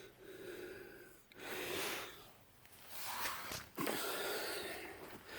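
A person's breathing close to the microphone: about four breaths in a row, each a soft rush of air roughly a second long with short pauses between.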